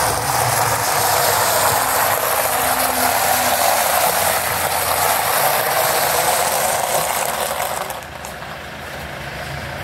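Footsteps crunching on loose gravel, a dense gritty crunching that drops away after about eight seconds to a quieter outdoor background.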